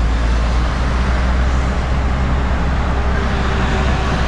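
Steady low diesel rumble heard inside a Scania S500 truck cab, its V8 engine running, with an even haze of heavy traffic noise around it.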